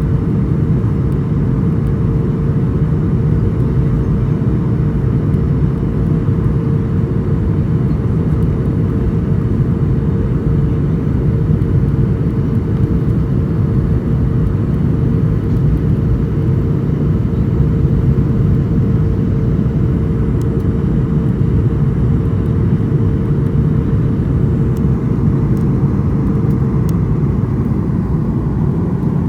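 Cabin noise inside a Boeing airliner landing: a steady, loud low rumble of engines and airflow, with a steady hum that fades out near the end.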